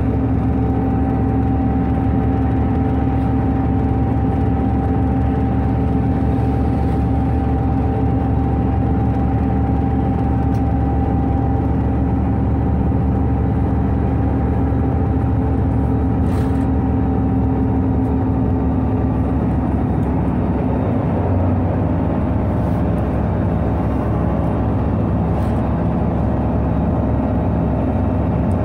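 Irisbus Citelis 18 articulated bus's IVECO Cursor 8 diesel engine running steadily under way, a continuous drone with a steady whine; a higher tone in the whine fades out a little past the middle.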